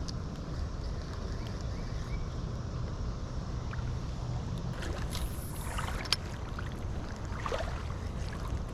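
Steady low rumble of wind buffeting the microphone outdoors, with a few light clicks and rustles around five to eight seconds in, the sharpest about six seconds in.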